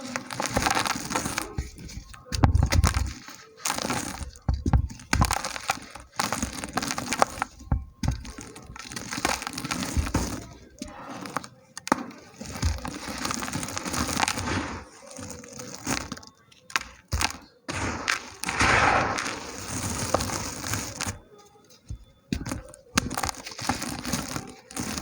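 Small dry chunks of red dirt crumbling and cracking as they are crushed, giving a gritty crackle in repeated bursts with sharp snaps and short pauses between them.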